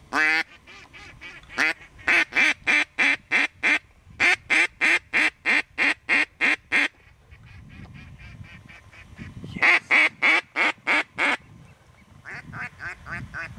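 Mallard hen quacks blown on a duck call: a long, even series of about fifteen quacks at roughly three a second, a shorter series of about six a few seconds later, and a quicker, softer run near the end.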